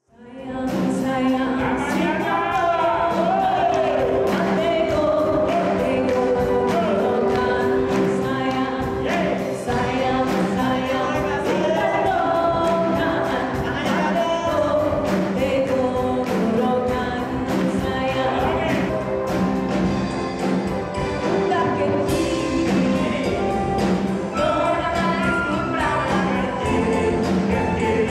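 Upbeat band music with singing over a steady drum beat, coming in at once from silence.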